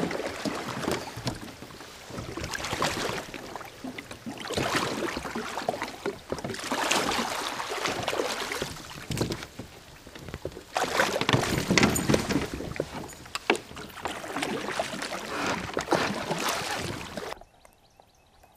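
Water rushing and splashing around a Perception fishing kayak's plastic hull as it is towed upstream through a shallow riffle, swelling and easing every couple of seconds. There are a few knocks against the hull in the middle stretch, and the sound drops suddenly to quiet near the end.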